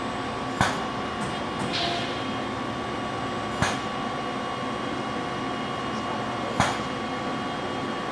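Robotic bending cell running: a Yaskawa robot arm working an SB 90x8A MRV bender gives a steady machine hum with a couple of held tones. It is broken by three sharp clunks about three seconds apart and a short hiss about two seconds in.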